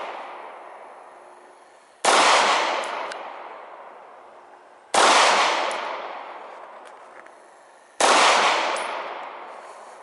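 Sig Sauer P226 Legion 9mm pistol fired single shots, slow aimed fire about three seconds apart: three shots, each followed by a long echo that dies away over about two seconds.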